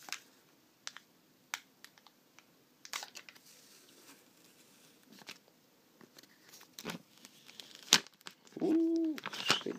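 Protective plastic film being peeled off a new HTC One smartphone: crinkling with scattered crackles and clicks, and one sharp snap about eight seconds in.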